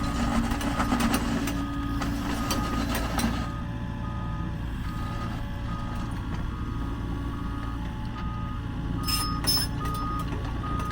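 Reversing alarm beeping steadily, about one short beep every 0.7 seconds, over a heavy diesel engine running. Sharp metallic clanks and knocks come through the first few seconds and again near the end.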